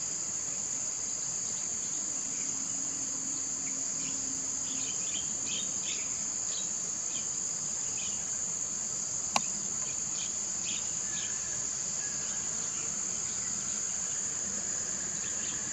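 Steady, high-pitched insect chorus, a continuous shrill drone, with a single sharp click about nine seconds in.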